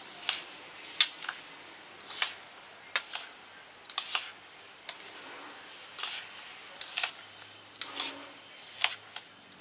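Metal spoon mixing whole chillies coated in mustard oil and ground spices for chilli pickle. It clicks and scrapes against the bowl irregularly, about one to two times a second.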